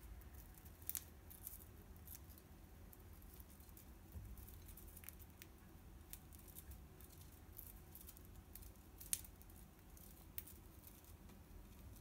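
Budgie nibbling and snipping at a dried-grass toy bundle with its beak: faint, scattered crisp clicks and crunches, with a couple of sharper snaps.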